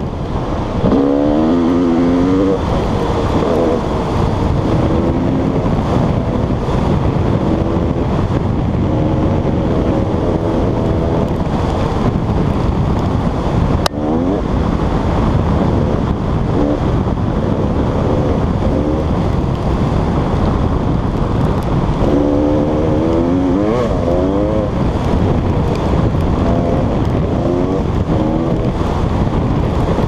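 Dirt bike engine revving hard and changing gears on a rough trail, its pitch climbing and dropping back again and again, under heavy wind and ground rumble on the bike-mounted camera's microphone. A single sharp knock about fourteen seconds in.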